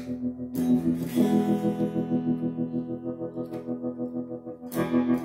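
Electric guitar chords played through a Stax Trelicopter tremolo pedal, the volume pulsing quickly and evenly, with a few chords struck afresh, about a second in and near the end. The guitar is a Squier Stratocaster on its bridge Hot Rails pickup.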